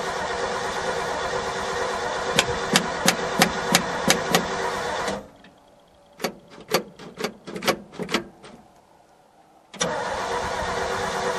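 Chevrolet 283 small-block V8 in a dump truck running just after a cold start: a steady engine sound, with a run of about seven sharp clicks, roughly three a second, a few seconds in. About five seconds in the engine sound drops away abruptly for over four seconds, leaving only a few scattered knocks, then comes back just as suddenly near the end.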